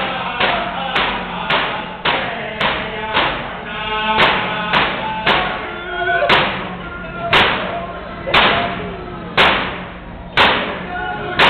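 Yup'ik frame drums (cauyaq) struck together in a steady beat under group singing. The beat goes about twice a second, then slows to about once a second halfway through.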